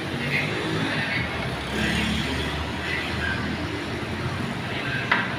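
Restaurant ambience: a steady low rumble with faint chatter in the background, and one sharp tap about five seconds in.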